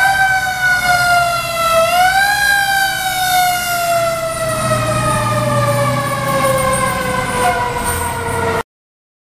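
Fire engine siren wailing as the engine passes: it rises sharply about two seconds in, then falls slowly and steadily over the rest of the sound, over a low engine rumble. It cuts off suddenly near the end.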